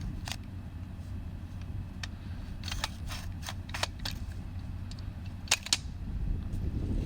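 Telescoping rooftop-tent ladder being collapsed, its sections clicking and clacking shut one after another, several in quick succession and two more near the end, over a low steady rumble.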